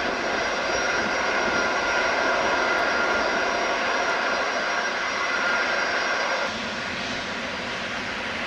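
Jet airliner engines running, a broad rush with a steady high turbine whine over it; the sound drops a little about six and a half seconds in.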